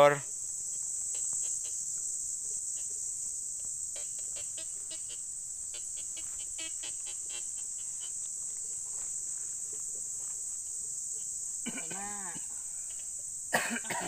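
Insect chorus: a steady, high-pitched chirring with no pause, under faint distant talk, and a short cough near the end.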